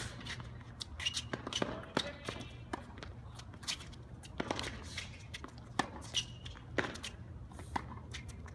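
Tennis rally on an outdoor hard court: a string of sharp pops from racket strokes on the ball and the ball bouncing, with the players' shoes scuffing and briefly squeaking on the court.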